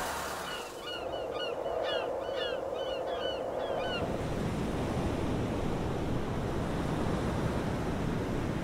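A bird calling over and over in short, curving notes above a steady wash of sea and wind; the calls stop about four seconds in, leaving only the rushing sound of waves and wind.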